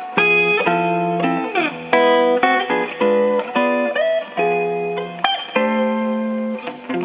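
Guitar playing: plucked chords and single notes, each struck sharply and left to ring, with a short sliding phrase about two seconds in.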